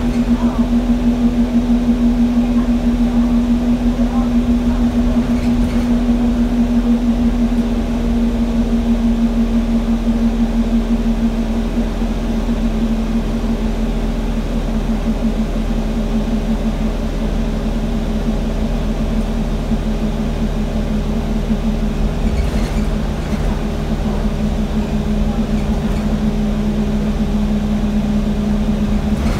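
Inside an Alexander Dennis Enviro200 single-deck bus under way: a steady engine and drivetrain drone with a strong hum and low rumble. The hum dips slightly in pitch midway and climbs again near the end.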